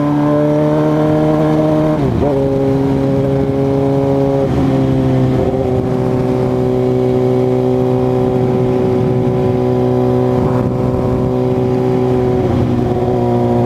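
2006 Suzuki GSX-R600's inline-four engine running under way, a steady engine note that drops in pitch about two seconds in and again a couple of seconds later, then climbs a little near the end.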